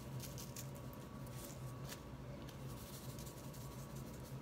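Seasoning shaken from a spice shaker bottle onto raw beef roast: faint, scattered ticks and scratchy rustles of the bottle and granules, over a steady low hum.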